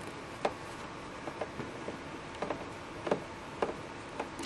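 Light, scattered clicks and taps from a laptop's parts and screws being handled during disassembly, about eight small ticks spread unevenly over a few seconds.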